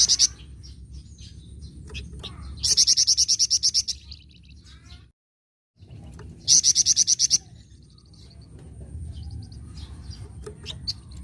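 Songbird sold as a 'flamboyan' giving two bursts of rapid, high 'cret-cret' chatter (nyecret), about ten notes a second and each burst about a second long, with softer chirps between. About five seconds in, the sound drops out completely for over half a second.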